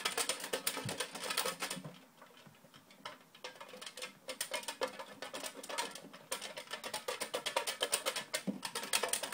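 Folded paper name slips rattling as a box is shaken to mix them, in two stretches of rapid, dense rattling with a quieter pause in between.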